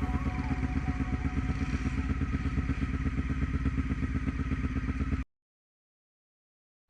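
Quad bike (ATV) engine running steadily with an even, rapid pulse, cutting off suddenly about five seconds in.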